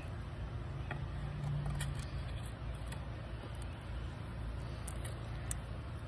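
A leather belt and cardboard gift box being handled, giving a few faint clicks over a steady low rumble.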